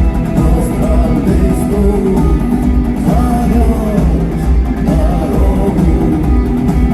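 Live rock band playing loudly, electric guitars over heavy bass, with no clear words sung.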